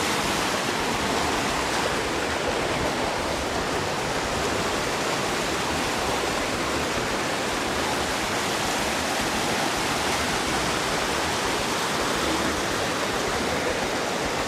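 River water rushing over granite boulders and small cascades: a steady, even rush of water.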